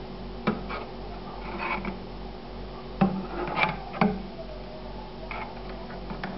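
A perforated skimmer knocking and scraping against the side of a metal pot of simmering stock while skimming fat from the reducing demi-glace base. There are three sharp knocks, about half a second, three seconds and four seconds in, with lighter scrapes between, over a low steady hum.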